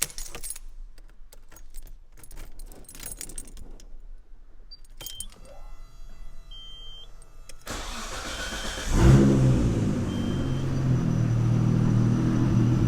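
Keys jangle and click, then the Nissan Skyline R32 GT-R's engine cranks, catches about nine seconds in with a brief flare, and settles into a cold idle.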